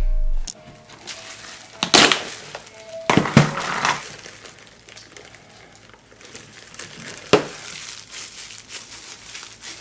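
Thin disposable plastic gloves crinkling as gloved hands handle a soft chew, in a few short bursts: about two seconds in, again around three to four seconds, and a sharp one about seven seconds in. Soft background music runs underneath.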